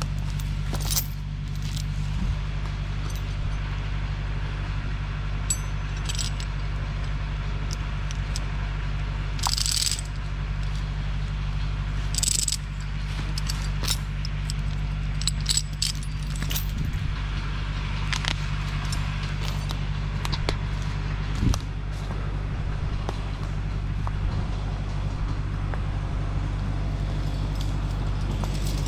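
Tractor engine running at a steady speed, with scattered metallic clinks and jangles over it, the sharpest about ten and twelve seconds in.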